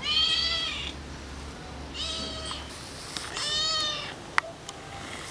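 Domestic cat meowing three times, each call rising then falling in pitch. A sharp click comes just after the third meow.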